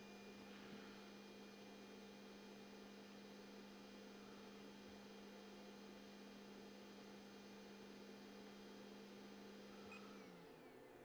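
Faint steady hum from the Elegoo Neptune 4 Max 3D printer, halted mid-print after a Y-axis stepper motor fault; the hum dips slightly in pitch and stops about ten seconds in.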